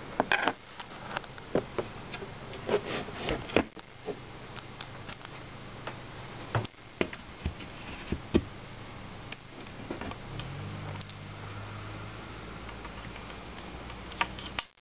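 Irregular clicks and knocks of bunk bed panels being handled and fitted together, as a board is pressed down onto a side piece over its dowels. The knocks come thickly in the first few seconds and sparsely after. A low steady hum joins about ten seconds in.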